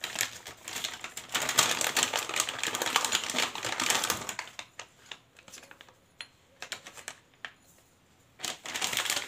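Small metal parts of a motorcycle timing chain kit rattling and clinking as they are handled: a dense run of rapid clicks for about four seconds, a few scattered clicks, then another quick run near the end.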